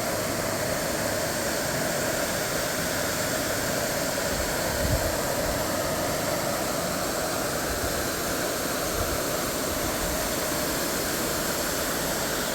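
Steady rushing of a large waterfall, an even roar of falling water.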